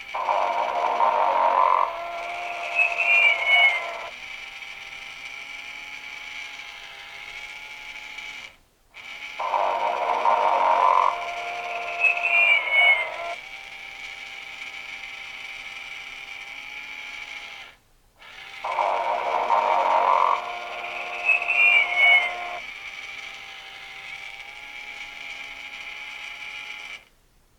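Sing & Snore Ernie talking plush toy's recorded snoring through its small speaker, three times about nine seconds apart: each time a loud snore, a short rising-and-falling whistle, then a quieter stretch of breathing.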